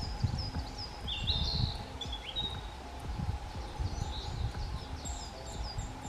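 Forest songbirds singing: a quick run of high chirps and short whistled phrases throughout, under a low rumble on the microphone.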